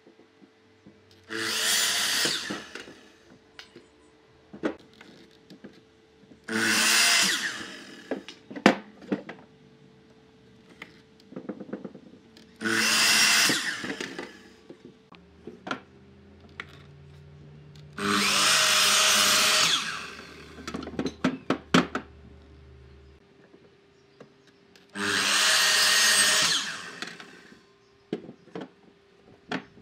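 Makita miter saw run five times, each a burst of a second or two as the spinning blade cuts through a wooden board, with short knocks between the cuts.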